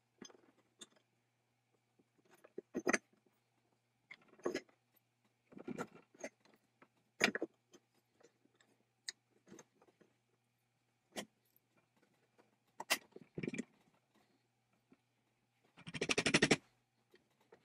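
Small metal clicks, taps and scrapes of a 1/2-inch combination wrench being fitted to and turned on a nut and bolt in a metal bracket holding brass bushings. Near the end comes a quick run of rapid clicks.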